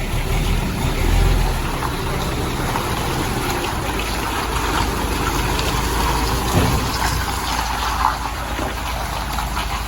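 A boat engine running steadily with a low rumble, under a constant rush and splash of water with scattered crackles.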